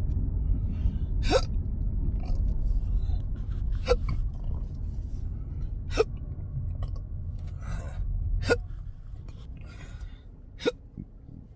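A man hiccuping involuntarily, one sharp hiccup every two to three seconds, each with a short upward catch in the voice: the persistent hiccups of intractable (chronic) hiccups. There are softer breaths between them, and a low rumble drops away about eight and a half seconds in.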